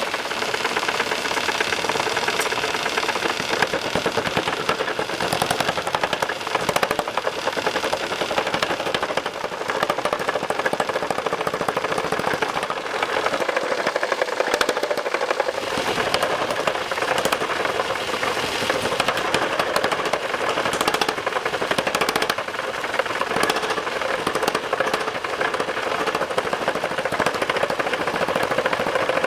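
Rapid mechanical hammering that runs continuously without a break, over a steady machine noise.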